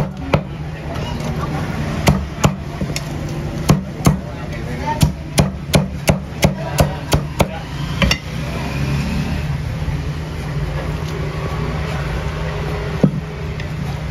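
A knife chopping roast pork with crackling skin on a thick round wooden chopping board, in a run of sharp knocks coming about two to three a second that stops about eight seconds in. One more knock comes near the end, over a steady low hum.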